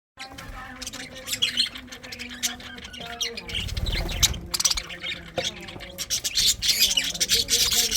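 Budgerigars chirping and squawking in quick, overlapping calls.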